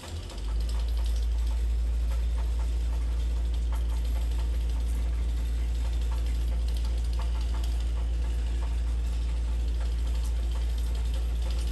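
A steady low engine drone that starts about half a second in and holds at an even level, with faint ticks over it.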